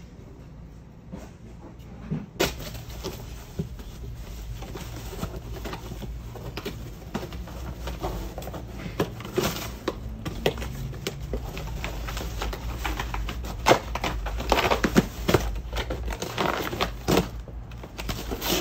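Black Labrador tearing at and pawing a cardboard box: irregular crackling, crumpling and ripping of cardboard with scattered knocks, starting a couple of seconds in and getting busier and louder in the second half.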